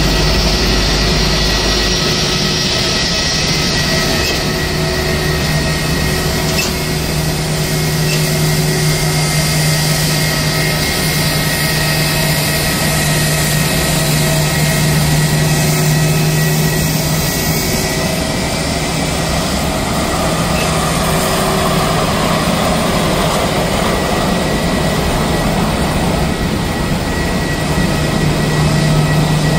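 Airbus A321 jet engines running at taxi power as the airliner rolls in to park: a steady low hum with a thin, constant high whine over it.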